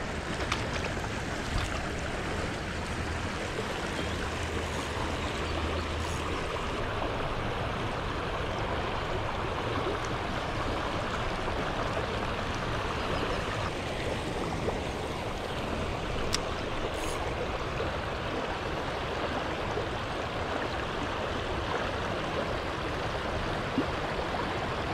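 Shallow river flowing over a rocky riffle: a steady, even rush of running water.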